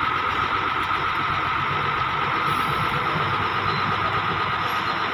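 Diesel truck tractor unit's engine running steadily, with a constant high whine over the engine note.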